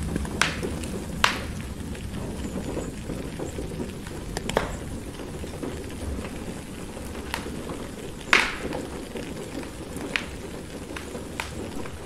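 Steady rain hiss mixed with a wood fire crackling, with a handful of sharp pops from the burning logs, the loudest about eight seconds in.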